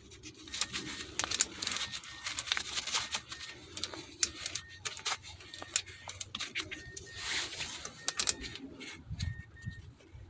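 Small ratcheting box wrench clicking in irregular runs as it tightens a brake caliper's bleeder screw, closing it after bleeding air from the brake line.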